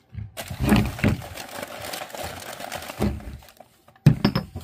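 Clicks and knocks of small objects, such as boxed crystal clocks, being handled and set down on a table, with a sharp knock about four seconds in.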